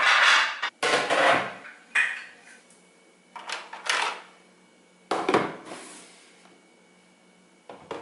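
Dishes and plastic children's tableware being handled and set down, in about five separate bouts of clattering and knocking with short pauses between.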